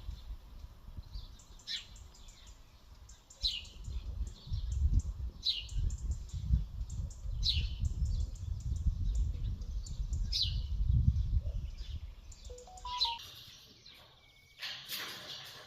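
A parrot calling with short, high, downward-sliding squawks about every two seconds. A low rumble runs under the calls through the middle, and a burst of rustling noise comes near the end.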